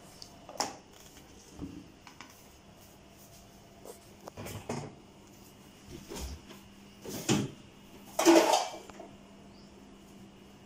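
Kitchen handling sounds: a scattering of short knocks and clatters of dishes, with the loudest clatter about eight seconds in, over a faint steady hum.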